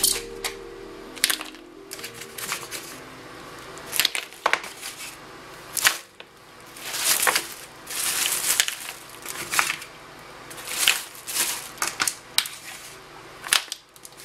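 Plastic Reynolds oven bag crinkling and rustling in irregular bursts as it is handled and mussels are dropped in, with scattered sharp clicks.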